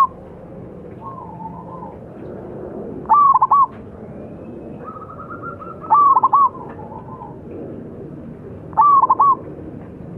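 Zebra dove cooing: three loud phrases of quick, stuttering notes, about three seconds apart, with softer calls between them.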